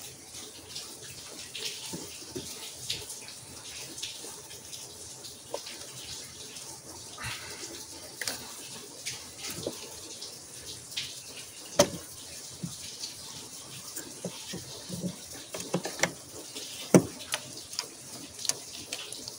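Irregular metal clicks and clinks of a wrench and nuts being handled on an engine, over a steady hiss, with the sharpest clinks about twelve and seventeen seconds in.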